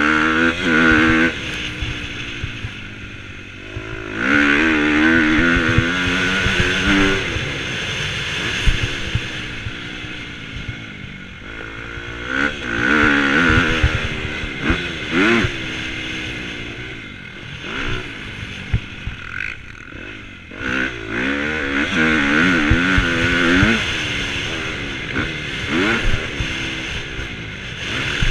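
Husqvarna motocross bike's engine, heard from the rider's helmet, revving hard and backing off over and over as it is ridden around a dirt track. The pitch climbs in several surges, with the longest around 4 to 7 seconds and 21 to 24 seconds in, and drops between them.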